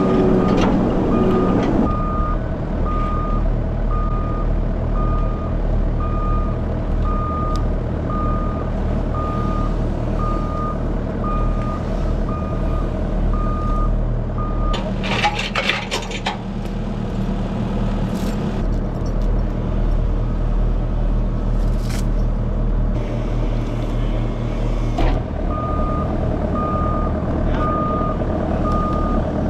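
A New Holland skid steer's diesel engine runs steadily, and its reversing alarm beeps about once a second while it backs up. The beeping stops about halfway through, a brief clatter comes around the middle, and the beeping starts again near the end.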